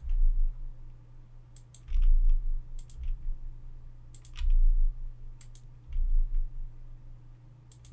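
Scattered clicks of a computer mouse and keyboard during 3D modelling work, over a steady low electrical hum from the recording setup. There are also several short low thuds, about one every second or two, and these are the loudest sounds.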